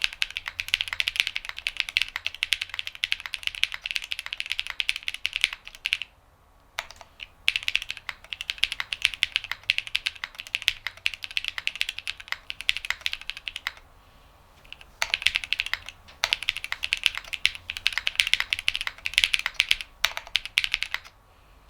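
Mechanical keyboard typing on lubed Techno Violet linear switches (nylon housing, long pole stem) in a Midway60 with polycarbonate half plate: fast, continuous key presses in three runs, with short pauses between them.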